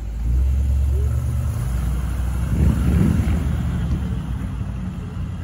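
Classic car driving slowly past and away, its engine and exhaust a steady low rumble that swells about two and a half seconds in as it pulls off.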